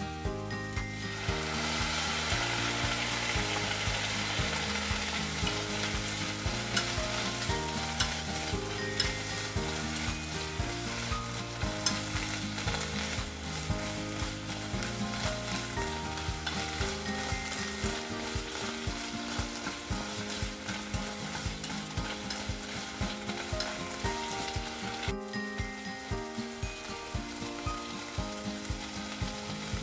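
Strips of green bell pepper sizzling in a frying pan while being stirred with chopsticks, the frying growing louder about a second in. Scrapes and light taps of the chopsticks against the pan come through the sizzle.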